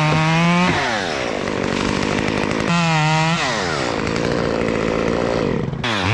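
Two-stroke chainsaw run up to high revs and let fall back toward idle, twice, then revved again near the end.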